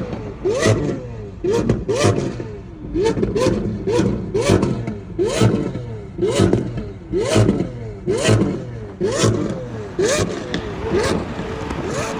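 Lamborghini Aventador SV's 6.5-litre V12 through a Gintani exhaust, blipped over and over: about once a second the revs shoot up and fall straight back. Each blip comes with a sharp exhaust crack.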